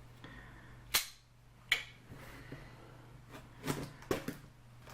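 A few sharp knocks and clicks, the loudest two about a second apart near the start and softer ones later, from a cardboard shipping box being handled. A steady low hum runs underneath.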